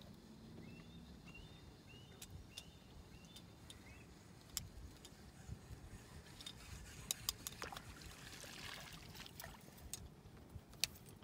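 Faint, scattered clicks and light knocks as a largemouth bass is unhooked by hand in a small boat, with a few sharper ticks in the second half.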